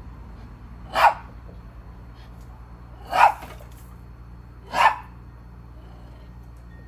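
Small Maltese dog barking three times, single sharp barks a second or two apart, at a squirrel on the fence above it.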